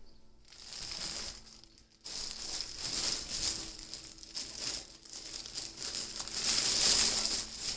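Packaging crinkling and rustling as it is handled and pulled open during an unboxing, louder and busier toward the end.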